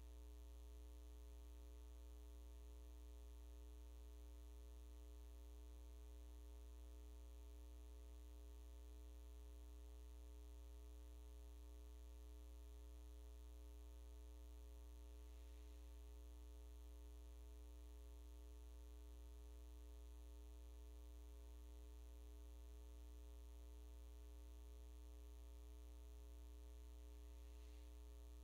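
Near silence with a steady electrical mains hum: a low, unchanging buzz with a ladder of evenly spaced overtones.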